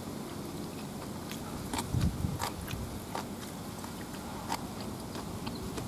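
A person chewing a mouthful of chicken dak-galbi, with scattered soft wet clicks from the mouth.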